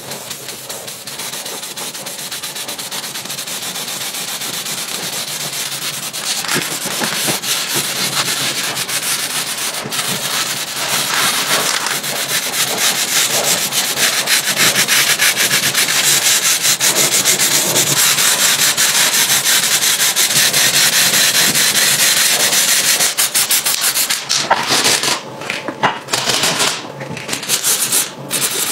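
Aerosol spray-paint can hissing steadily, growing louder over the first several seconds. Near the end the hiss gives way to short rubbing bursts with brief pauses, as masking tape is pressed onto the painted plastic.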